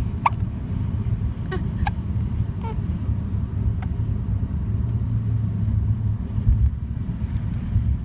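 A newborn baby's hiccups: a handful of very short, sharp little squeaks in the first four seconds, over a steady low rumble.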